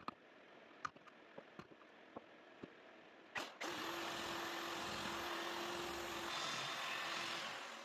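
A few light clicks and taps, then a sharp knock, after which a power tool runs steadily with a held hum for about four seconds and winds down near the end.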